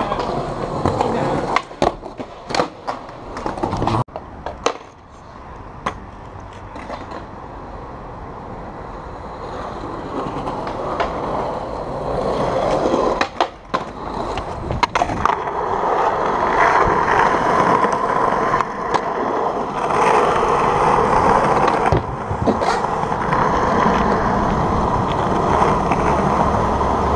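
Skateboard wheels rolling over sidewalk and asphalt, with sharp clacks of the board popping and landing in the first few seconds and again around the middle. The rolling noise grows louder and steadier through the second half.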